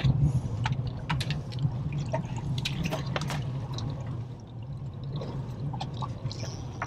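Water splashing and dripping around a boat, with many small irregular drips and splashes over a steady low hum.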